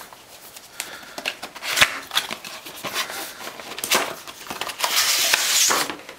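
Plastic shrink wrap on a cardboard box being torn and crinkled by hand: irregular crackling and rustling with a few sharp snaps, and a longer burst of tearing and crumpling about five seconds in.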